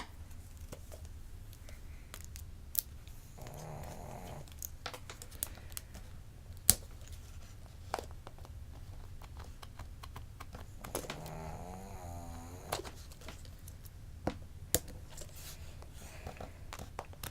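Small toy packaging being handled and opened by hand: scattered sharp clicks, crinkles and tearing of plastic and foil wrap, the loudest snap about seven seconds in. A faint voice murmurs briefly twice, about four and eleven seconds in.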